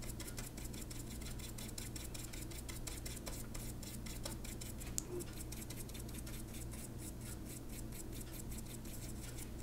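Faint scratching and ticking of a small Gamsol-wet paintbrush stroked over colored pencil pigment on paper, over a steady low hum.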